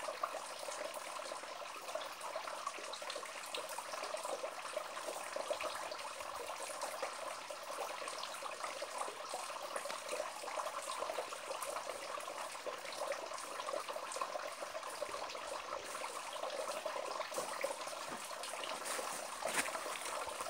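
Thin stream of water trickling off a rock ledge and splashing onto the stones below: a steady, irregular trickle of many small splashes.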